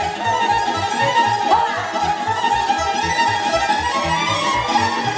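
Romanian wedding-band dance music: a lead melody with sliding notes over a fast, steady beat.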